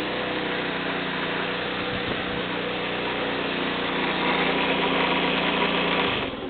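Small 50cc moped engine idling on its first cold start after five months laid up, running unevenly ('not happy'); it gets a little louder about two-thirds of the way in, then cuts off near the end.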